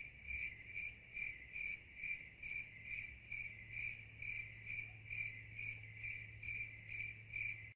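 Crickets chirping as a sound effect: a steady run of short, even chirps, about two and a half a second, the stock sound for waiting in awkward silence.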